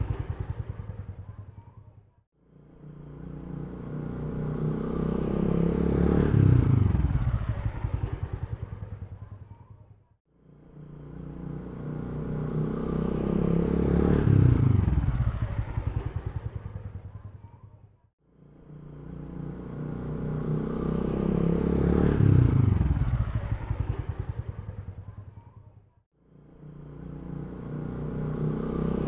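Motorcycle engine running with a fast, even firing pulse. The sound swells up and fades away to silence about every eight seconds, the same stretch repeating over and over.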